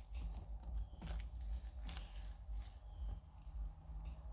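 Sticky, partly activated slime being worked and pulled off fingers, making faint irregular clicks, over a steady high-pitched whine.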